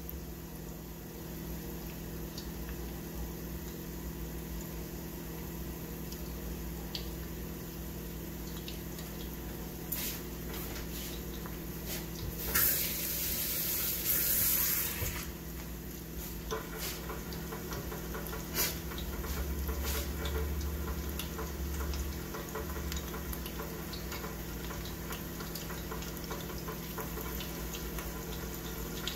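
Panko-battered squid deep-frying in hot oil in a small saucepan: a steady bubbling sizzle with scattered small crackles, swelling into a louder hiss for about three seconds near the middle.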